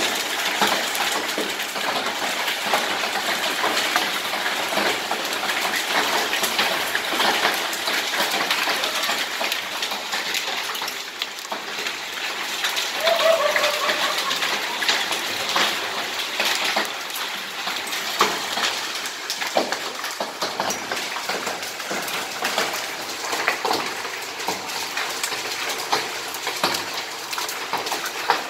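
Hailstorm: hailstones and rain pelting a concrete yard, a dense steady hiss full of sharp little clicks from the stones striking the ground.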